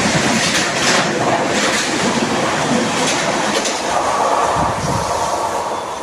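An express train running through a station at speed, its wheels clattering over the rail joints in a loud rushing rumble. The sound begins to die away near the end.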